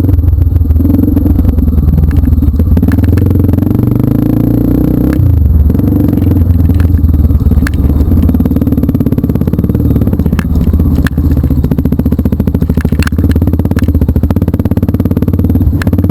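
Motorcycle engine running continuously under way on a dirt trail, its pitch drifting up and down, with scattered clicks and clatter.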